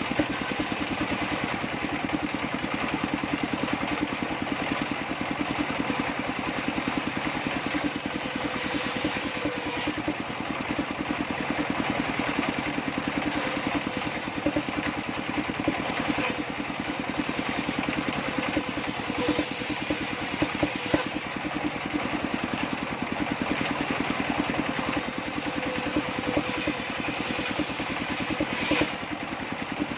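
Engine-driven circular saw table running steadily, with a fast, even engine beat throughout.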